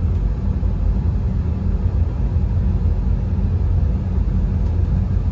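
Steady low rumble of simulated Boeing 747-8 engine and airflow noise in a flight simulator cockpit on final approach.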